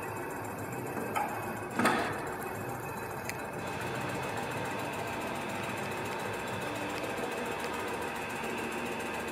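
Eckold Piccolo KF 330 Kraftformer running: its motor-driven ram makes a steady, rapid mechanical clatter. A sharp knock stands out about two seconds in, with a fainter click just before it and another a second or so later.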